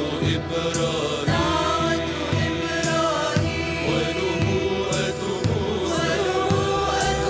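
Mixed choir of men and women singing an Arabic religious song together, backed by a live ensemble with strings.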